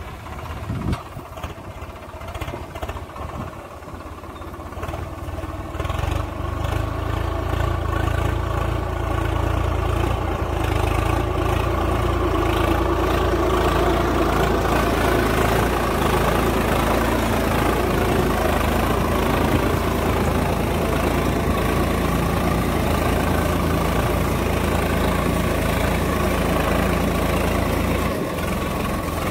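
Swaraj 855 FE tractor's three-cylinder diesel engine running under load as it pulls a disc plough through the soil. It grows louder over the first dozen seconds as the tractor comes close, then runs steadily.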